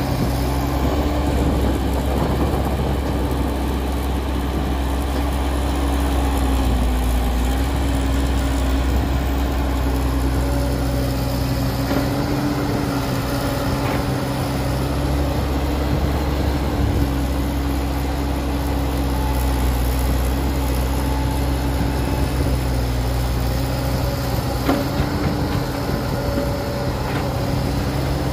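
Diesel engine of heavy construction machinery running steadily: a low hum with a steady higher tone over it, and a couple of faint knocks.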